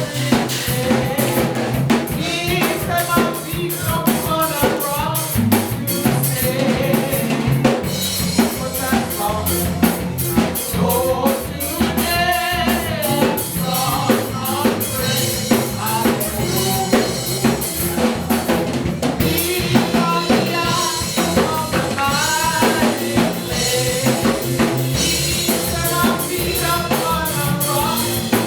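Live contemporary worship band playing, with a drum kit (bass drum, snare and rimshots) keeping a steady beat under a wavering melody line.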